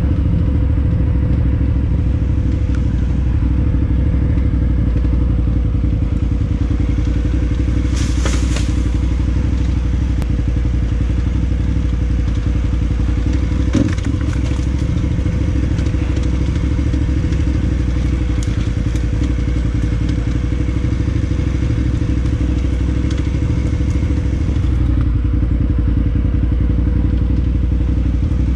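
KTM 990 Adventure S's V-twin engine running steadily under way. A brief rattle comes about eight seconds in, and a single sharp knock comes about halfway through.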